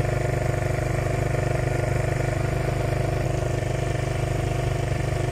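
Quad bike engine idling steadily, its pitch unchanging, with an even, rapid pulse.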